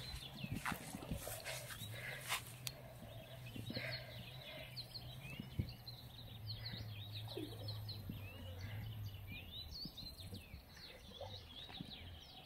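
Small birds chirping in many quick, short calls, over a low steady hum, with a few sharp taps.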